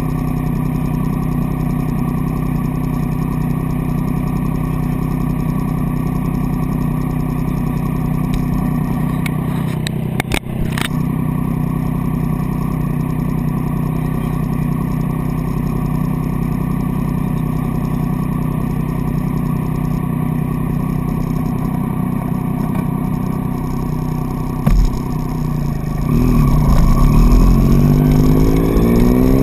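Triumph Street Triple's inline three-cylinder engine idling steadily, with a brief clatter of knocks about a third of the way through and a thump near the end. In the last few seconds the engine revs and the bike pulls away, its pitch rising through the gears.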